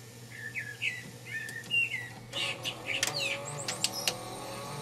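A few short bird chirps. Then, from about two seconds in, the Panasonic NV-HS900B VCR's cassette mechanism starts whirring and clicking as it unloads the tape to eject it.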